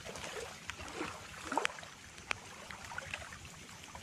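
Footsteps wading through shallow water, with sloshing and trickling. There is a louder splash about a second and a half in, and a sharp click a little later.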